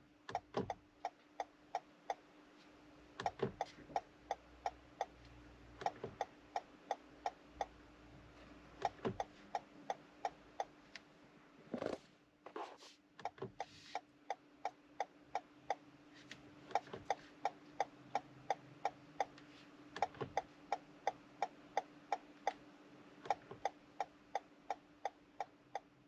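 Toyota GR Yaris turn-signal ticker clicking a quick tick-tock in short runs with pauses between them. Each run is one tap of the stalk, and the comfort signal blinks a set number of times, three at the factory setting and four after the change. There is a steady faint hum beneath, and a couple of duller knocks near the middle.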